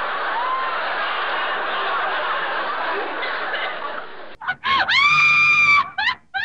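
A group of people laughing. About four seconds in it cuts off, and a high, pitched cry follows: two short notes, one long held note, then three short yelps.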